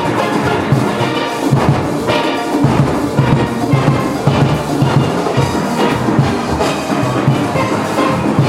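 Steelband playing live: many steelpans with a driving rhythm section of drums and percussion.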